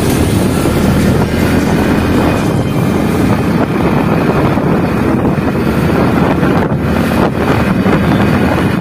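Steady, loud wind buffeting on the microphone of a moving motorcycle, with the motorcycle running and the tyres on the road underneath.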